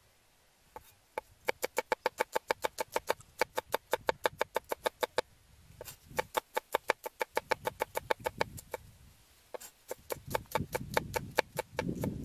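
Cleaver slicing garlic cloves on a thick wooden chopping block: quick, even knocks about five a second in runs of a few seconds with short pauses between. Near the end duller, lower knocks mix in.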